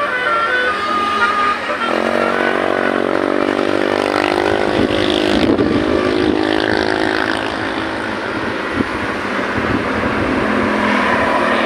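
Basuri musical car horns playing: a few short stepped notes, then from about two seconds in a long, slightly wavering multi-tone blast, over car engine and road noise.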